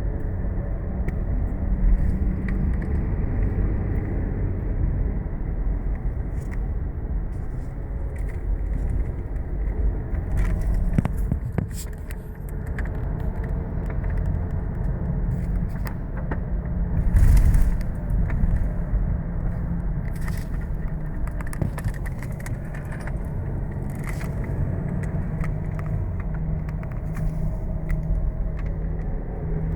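A car driving with worn front wheel bearings: a steady low hum over the road rumble, with scattered short knocks and rattles, a louder one about two-thirds of the way through.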